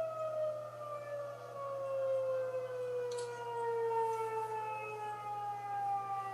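Outdoor tornado warning siren winding down, its tone sliding slowly and steadily lower in pitch. A faint click comes about three seconds in.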